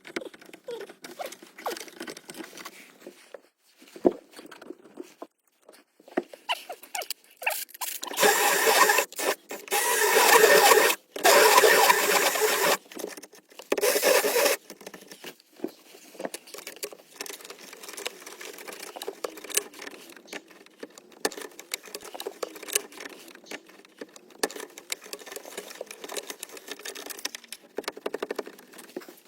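Small clicks and scrapes of handling, then about eight seconds in a power drill cutting a hole, loud, in three runs over about six seconds with short stops between them. Light clicking and scraping follows.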